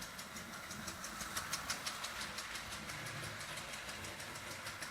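Marx O27 toy steam locomotive running on its track, its chug-chug mechanism (a metal tab driven by the connecting rod tapping a diaphragm) giving a rapid, even tapping over the hum of the motor and wheels.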